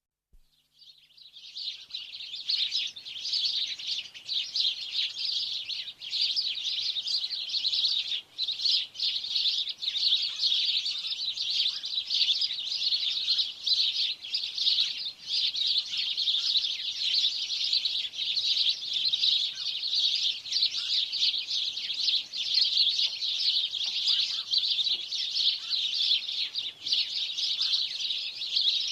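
Dense, continuous chorus of many small birds chirping together, fading in over the first two seconds and then holding steady.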